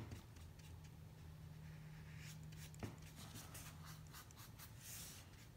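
Faint scratchy strokes of a small paintbrush spreading paint on paper, with a faint low hum behind and a small tap about three seconds in.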